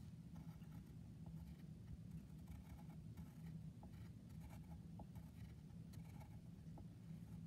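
Faint scratching of a drawing tip on paper, short irregular strokes, over a low steady room hum.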